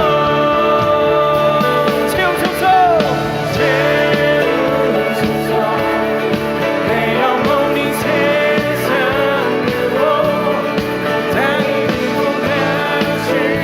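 A Christian worship song playing: a voice singing a melody over steady instrumental accompaniment.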